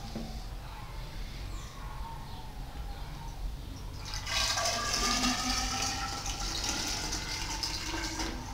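Nitric acid poured from a glass bottle into a plastic graduated cylinder, starting about four seconds in. It is a steady splashing pour, and its tone rises slowly as the cylinder fills.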